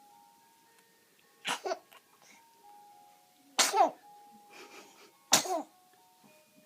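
A baby sneezing three times, about two seconds apart, the first sneeze softer than the last two. Faint music plays behind.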